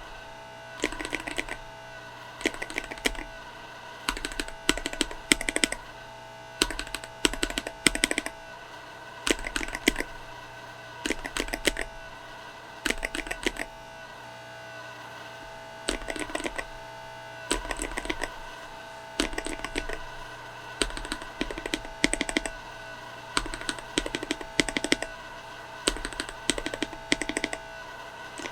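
Typing sound test on a mechanical keyboard fitted with Akko CS linear switches: short bursts of keystrokes every second or two, the keys bottoming out and springing back. A faint steady tone runs underneath.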